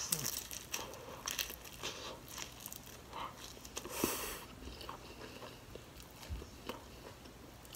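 Crunchy bites and chewing of a deep-fried shrimp egg roll: a run of short, crisp crunches, with a louder crunch about four seconds in.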